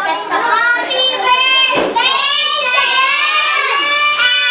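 Many young children's voices singing together, loud and high-pitched, with a short knock about two seconds in.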